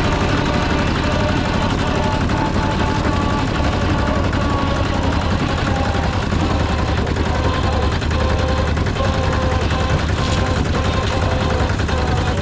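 Rice combine harvester's diesel engine and machinery running steadily at working speed, a loud, even, rapid pulsing drone.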